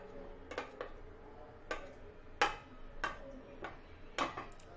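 Spatula clicking and scraping against a ceramic plate as it spreads a sticky papaya barfi mixture. There are about eight light, irregular clicks, some with a brief ring.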